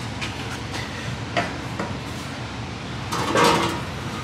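Light metallic knocks and clanks of sheet-metal work, with a louder clatter about three seconds in, over a steady low hum.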